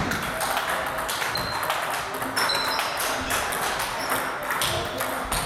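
Table tennis balls being struck back and forth with rubber paddles and bouncing on the tables in a training rally: a fast, overlapping run of sharp clicks and short high pings from more than one table at once.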